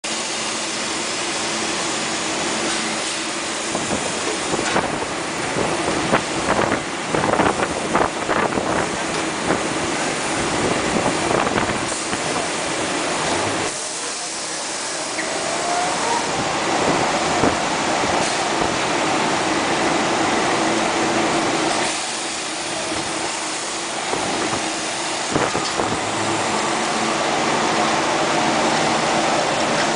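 Rockwool pipe outer-diameter grinding machine running: a steady motor hum and grinding noise, with a run of knocks and clatter about six to nine seconds in.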